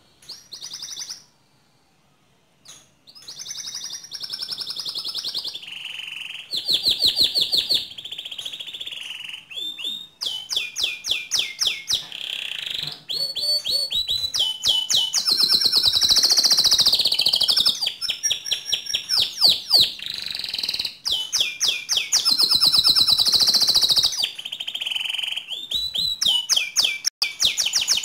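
White domestic canary singing a long, loud song of fast trills and rapid runs of repeated notes, after one short phrase and a brief pause at the start.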